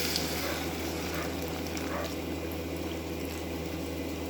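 Chicken stock pouring into a hot pan of toasted lentils and vegetables, sizzling and bubbling; the hiss eases about two seconds in.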